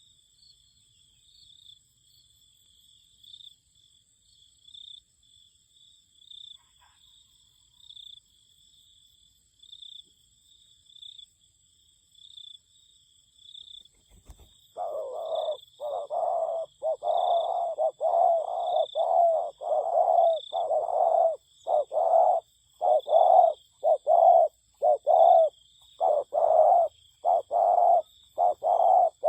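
Insects chirring steadily with a pulse every second or so, then about halfway through a spotted dove starts cooing loudly. It gives a long run of coo phrases in quick succession, the decoy-dove call that keepers call "còi pha".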